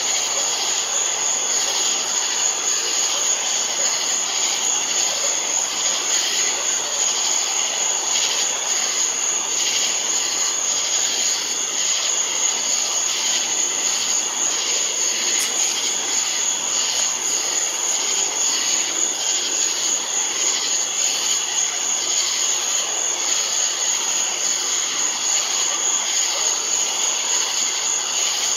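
A night insect chorus of crickets or katydids, a steady high-pitched trilling that never lets up, over an even rushing background noise.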